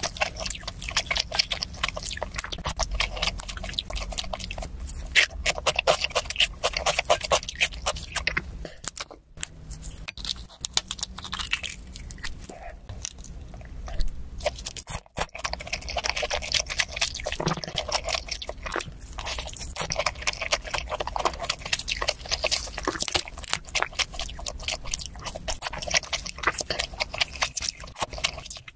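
A person chewing and crunching a spicy noodle and sprout dish, with a dense run of wet, crackly mouth sounds. It breaks off twice for a moment.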